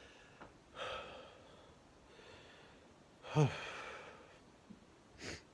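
A man ill with Covid-19 breathing heavily: several noisy breaths, and about midway a loud out-breath with voice in it that drops in pitch, then a short sharp breath near the end. The strained breathing is a sign of the infection at its peak, when he struggles to breathe.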